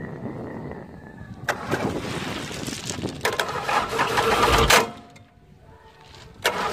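Road roller's starter motor cranking the engine, jumped directly at the starter terminals because the ignition key switch is faulty. It begins sharply about a second and a half in, stops about five seconds in, and cranks again near the end.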